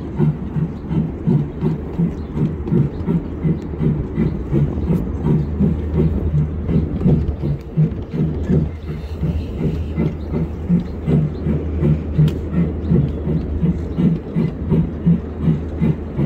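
Miniature ride-on railway train running along its track, with a steady low hum under a regular knocking beat of about two to three a second.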